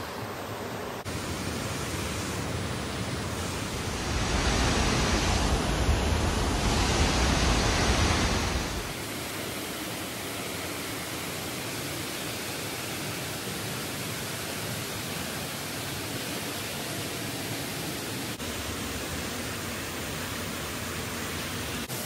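Steady rush of water from a rocky creek and waterfall, louder and deeper for about five seconds around the middle of the first half.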